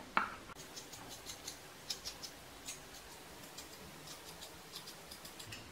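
Kitchen knife scraping the skin off a small green hog plum in short, light strokes, a faint scratching a few times a second. A brief knock just after the start.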